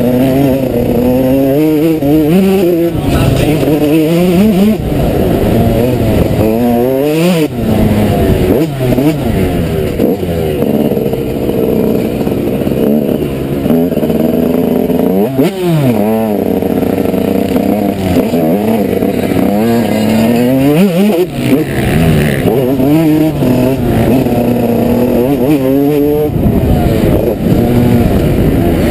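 Yamaha YZ 125 single-cylinder two-stroke motocross engine at race pace, heard from onboard. It revs up hard again and again, with sharp drops in pitch every few seconds as the rider shifts gear and backs off the throttle.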